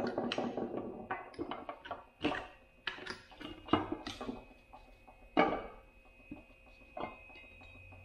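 Irregular sharp metal knocks and clicks as a differential cover is tapped and pried loose from its housing with hand tools. The cover is tight on its alignment dowels and has to come off straight. The knocks thin out after about five and a half seconds.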